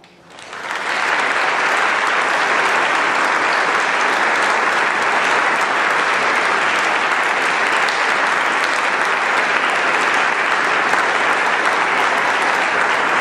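Audience applauding, swelling up over the first second and then holding steady.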